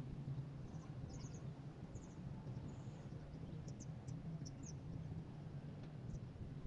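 Small bird giving a few faint, short, high-pitched chirps, some gliding, between about one and five seconds in, over a steady low rumble.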